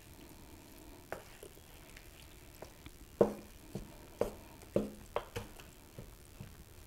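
Wooden spoon stirring wet cornbread dressing in a large bowl, the spoon knocking against the bowl's side: one knock about a second in, then a run of irregular knocks roughly every half second from about three seconds in.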